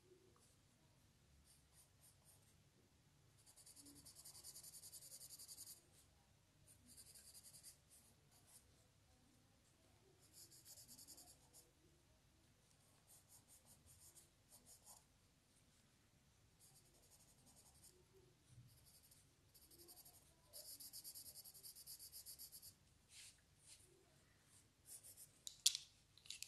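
Faint scratchy strokes of a drawing tool colouring in on paper, in several short spells of shading a second or two long, with a sharp tap or click near the end.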